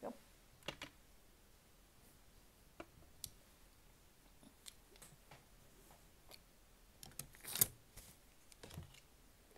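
Faint, scattered light clicks and taps as hands with long acrylic nails handle a sandwich and tableware, with one louder brief rustling clatter about seven and a half seconds in.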